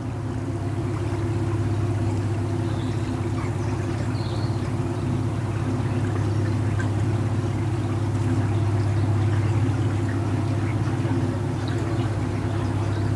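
Narrowboat's inboard diesel engine running steadily under way at cruising speed, a low even drone.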